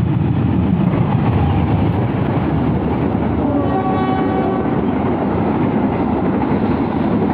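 Loud, steady vehicle rumble, with a brief horn-like tone sounding about four seconds in.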